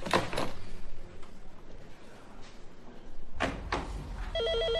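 A couple of short knocks and rustles, then near the end an office telephone starts ringing with a rapid, warbling electronic trill.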